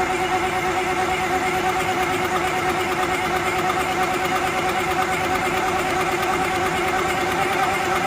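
Diesel generator engine running steadily with a fast, even beat.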